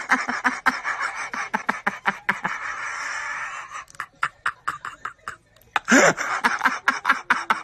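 People laughing and shrieking excitedly in quick, choppy bursts, with a drawn-out squeal of excitement early on and another rising squeal about six seconds in.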